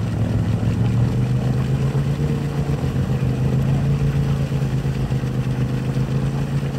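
A loud engine running steadily at a near-constant speed, with no clear revving.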